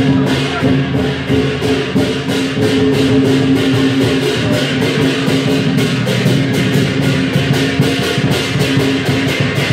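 Lion dance percussion: a large Chinese lion-dance drum beaten at a quick, steady pace of about five strokes a second, with cymbals clashing and ringing along with it.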